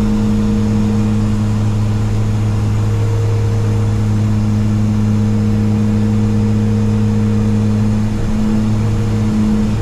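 Twin Garrett TPE331 turboprops of a BAe Jetstream 32 heard from inside the cockpit on approach: a loud, steady propeller drone with a strong low hum. Around eight seconds in, the pitch wavers briefly.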